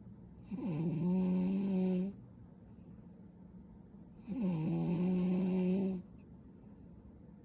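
A young woman snoring in her sleep: two long snores about four seconds apart, each starting with a quick drop in pitch and then holding a steady buzzing tone.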